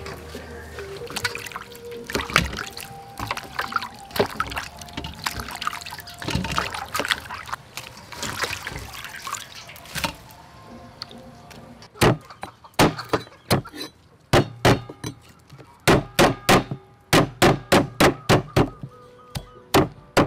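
Lemongrass stalks rubbed and splashed by hand in water in a metal colander. About twelve seconds in, a cleaver starts chopping them on a wooden chopping block: a run of about twenty sharp chops in quick clusters.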